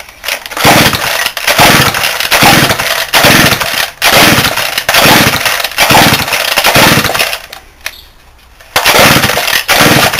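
Stihl 08 chainsaw's two-stroke engine being pull-started on full choke: about eight quick pulls of the recoil starter in a row, each turning the engine over in a short burst of rapid pulses, then a pause and one more pull near the end, without the saw starting. The owner suspects a hardened carburettor diaphragm and a fuel delivery problem.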